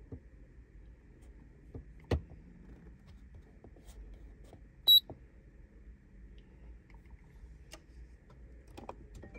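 A handheld ECU flash tool gives one short, high-pitched electronic beep about five seconds in, over a faint low hum, with a few soft clicks around it.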